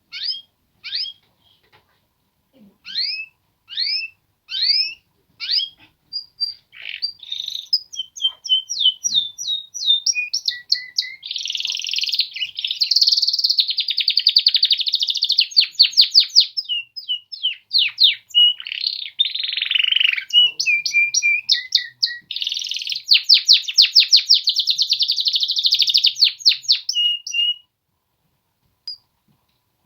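Male canaries singing: first a run of separate downward-sweeping chirps about a second apart, then a long continuous song of rapid trills and rolls that stops a couple of seconds before the end.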